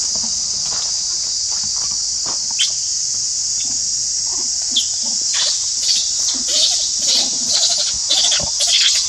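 Steady high-pitched drone of insects, with short high chirps and squeaks that come more often from about halfway through.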